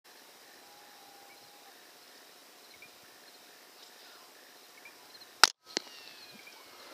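A single rifle shot about five and a half seconds in, sudden and by far the loudest sound, followed a moment later by a second, weaker sharp crack. Before it, only a faint steady background hiss with a few faint chirps.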